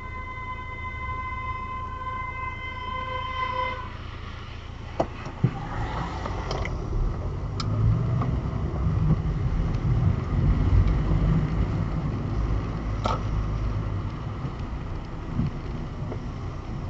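Car engine and tyres on a wet road as the car pulls away from traffic lights, the low rumble growing from about five seconds in, with a few sharp clicks. Before it moves off, a steady high tone sounds for about four seconds and then stops.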